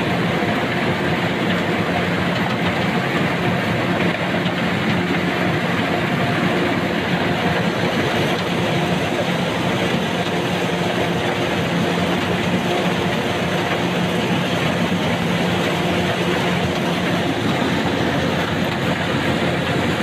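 Small corn combine harvester running steadily while harvesting dry corn: a constant engine hum under a dense, even mechanical noise from the cutting and threshing gear.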